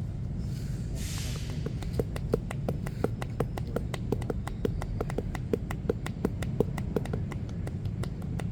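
Massage percussion: hands slapping a person's body in a quick, even rhythm of about three to four hollow pops a second, over a steady low street rumble.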